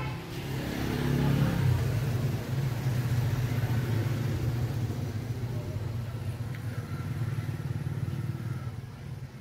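A Philips mixer grinder's bare universal motor running on the bench with a steady, rough low hum, sparking more than it should.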